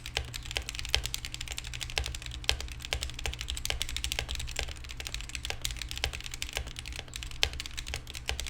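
Fast typing on a Womier K61 60% mechanical keyboard fitted with unlubed Akko Matcha Green linear switches, lubed Glorious Pandas on the modifiers and stock keycaps: a continuous run of clacking keystrokes, several a second. A steady low hum lies underneath.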